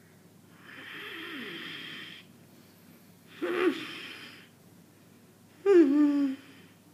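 A person's voice making breathy, wheezing sounds: a long wheezing breath about a second in, a short, louder gasp in the middle, then a brief low moan that drops in pitch near the end.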